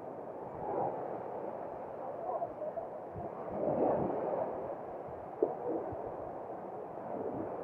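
Muffled outdoor noise on an open beach: a steady rushing haze that swells a little now and then, with a sharp knock about five and a half seconds in.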